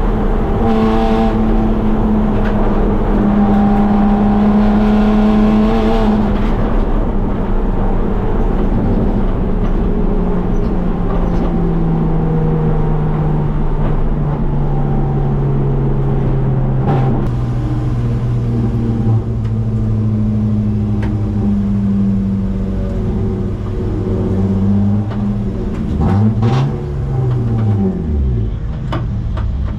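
A BMW E36 325is race car's 2.5-litre straight-six engine heard from inside the cabin, holding steady revs at first, then the note falls as the car slows and settles to a lower steady pitch. Near the end there is a quick rev that rises and falls, with a few sharp knocks.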